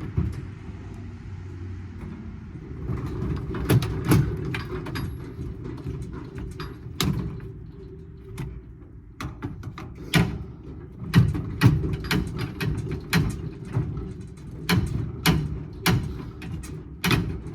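Irregular metal knocks and clanks as parts of a scrap air-conditioning unit are handled and taken apart, over a steady low rumble.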